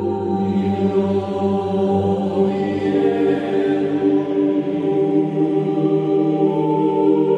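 Background music of chant-like choir voices holding long, sustained notes, with a higher note entering near the end.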